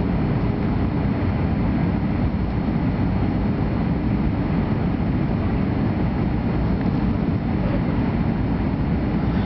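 Cabin noise inside a jet airliner coming in to land: the steady, low rush of the engines and the airflow, with a faint steady hum and whine above it.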